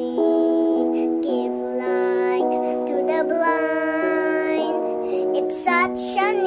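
Young girl singing a gospel song with instrumental accompaniment, holding long notes, with a wavering note near the end.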